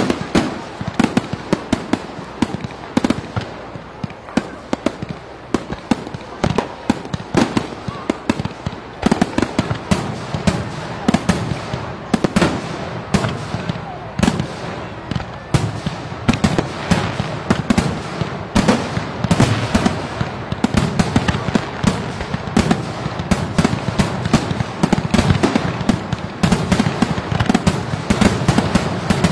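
Fireworks going off in a dense, continuous barrage: many sharp bangs and crackles, several a second, with no letup.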